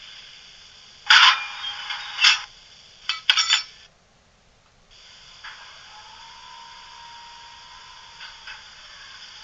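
Sound effects from a Bachmann class 45 'Peak' model locomotive's DCC sound decoder through its small onboard speaker: a loud hissing burst lasting over a second, then a quick cluster of clicks. The sound cuts out about four seconds in, then returns as a steady quieter hiss with a faint held tone.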